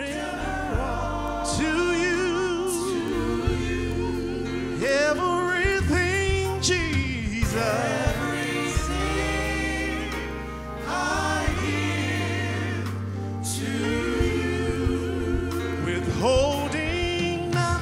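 Gospel worship song: a lead singer with a wide vibrato and a group of voices singing over sustained bass notes.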